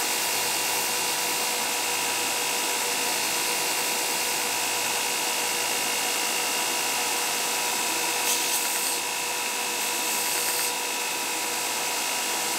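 Knife maker's belt grinder running steadily, a constant hum with a high whine, as the edge of a leather knife sheath is sanded flush against the belt. A brighter, hissier stretch a bit past the middle marks the leather pressed harder to the abrasive belt.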